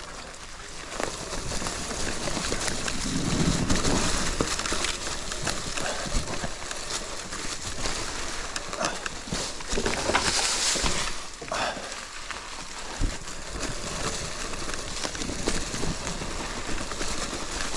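Continuous noise of riding along a forest track: a steady hiss with many scattered clicks and crackles, swelling briefly about ten seconds in.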